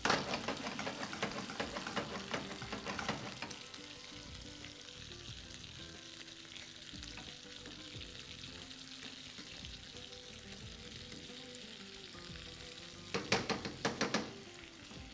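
Cream sauce bubbling and sizzling in a frying pan as spaghetti is tossed with metal tongs. The tongs click and scrape against the pan during the first few seconds, then the steady simmer carries on alone. Near the end comes a short burst of sharper clicking.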